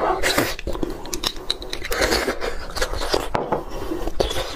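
Bone marrow being sucked out of a roasted bone and chewed, close to a clip-on microphone: wet slurps and mouth smacks with many sharp clicks.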